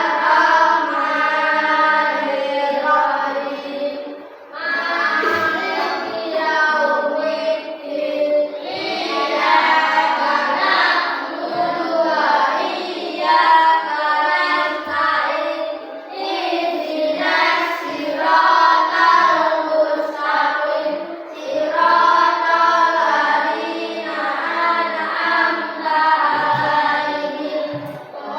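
A class of young children singing together in unison, phrase after phrase with short breaks for breath.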